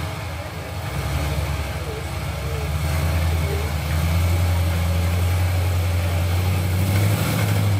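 Rock-crawling buggy's engine running low and steady, growing louder about halfway through.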